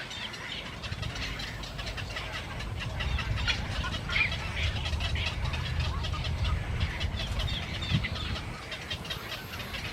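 A flock of domestic fowl calling, with many short overlapping calls throughout and a low steady rumble underneath.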